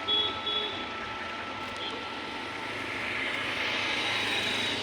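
Road traffic passing, a steady engine and tyre noise that swells as a vehicle goes by in the second half.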